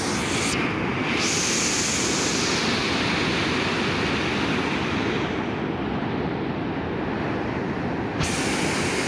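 Fast canal water rushing and churning white through a concrete sluice gate, a loud steady rush of noise. The hiss at the top drops away from about five seconds in and comes back near the end.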